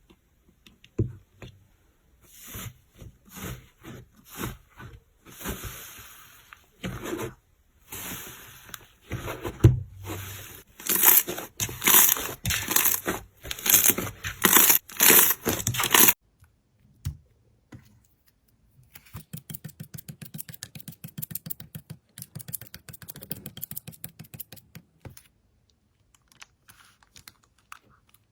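Slime being squeezed and pressed, giving crackling, crinkling sounds in quick bursts for the first sixteen seconds or so. After a short pause comes a fast run of small clicks and pops, about ten a second.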